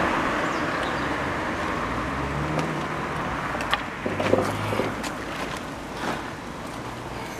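Road traffic: a car passing, its noise fading over the first few seconds into a steady background hum. A few light clicks and knocks come about midway and again later.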